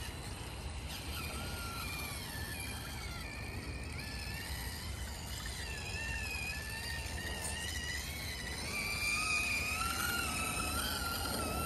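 Small 1/18-scale RC crawler truck's electric motor and gearbox whining, the pitch wavering up and down with the throttle as it drives, over a low rumble of the tyres on the ground. The whine grows louder in the second half.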